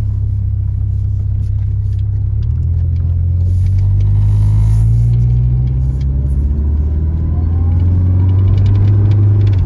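1986 Chrysler LeBaron wagon's engine pulling away and accelerating, heard from inside the cabin: a low drone that climbs in pitch, drops back about six seconds in and again at the very end as the transmission shifts up.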